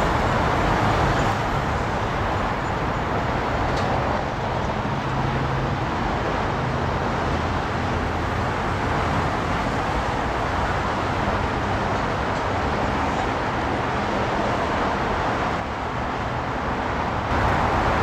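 Steady road-traffic noise from a freeway, an even rush with no distinct events.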